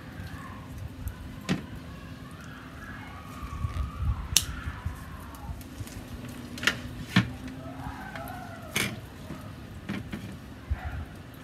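Scissors snipping butcher's twine and the strings being pulled off, heard as a scattering of sharp single clicks and snips over a steady low hum.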